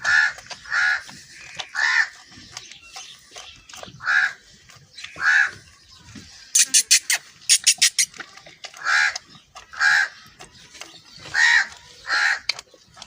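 A crow cawing over and over, short harsh caws about a second apart. About halfway through there is a quick run of sharp clicks.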